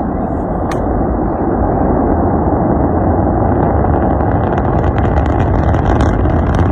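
Rocket engines firing at launch: a loud, steady rumbling noise that slowly grows louder, with crackling joining in about four seconds in.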